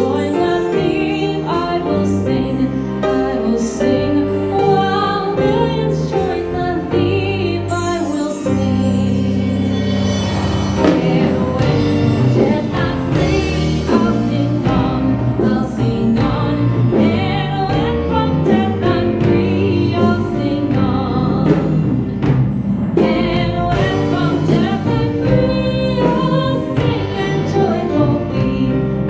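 A woman singing a Christian worship song into a microphone, accompanied by a Yamaha keyboard and a drum kit with cymbals.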